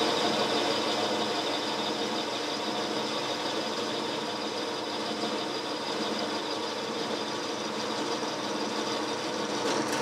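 Boxford lathe running steadily with its motor and gear whine while a parting-off tool cuts into a small metal roller, with a brief tap just before the end.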